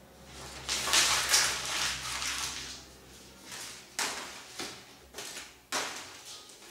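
A sheet of paper being crumpled by hand into a ball: dense crackling and crinkling, loudest in the first couple of seconds, then a few sharper single crackles.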